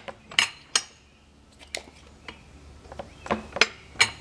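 Sharp metallic clicks and clanks, irregularly spaced, with a few close together near the end, from a ratcheting jack being worked to roll a big log over on a sawmill carriage.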